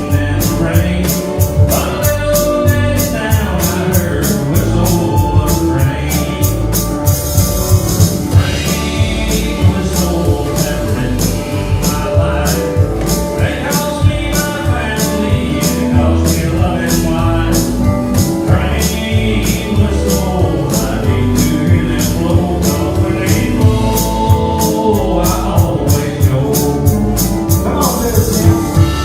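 Live country band playing a song with a steady drum beat, a male lead vocal singing in parts.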